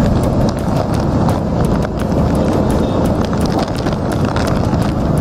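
Heavy rain and floodwater: a steady rushing noise with a dense patter of small splashes and clicks through it.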